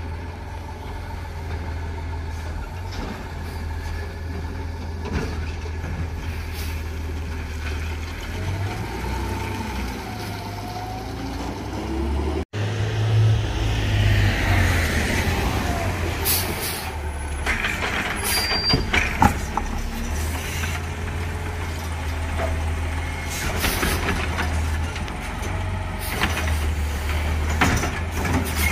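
Side-loader garbage truck's diesel engine running, with a wavering whine about a third of the way in. Air brakes hiss, and there are clanks and knocks as the truck stops and pulls forward; the sound cuts briefly about halfway through.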